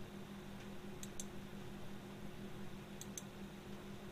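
Computer mouse clicked twice in quick succession, then again about two seconds later, over a steady low hum.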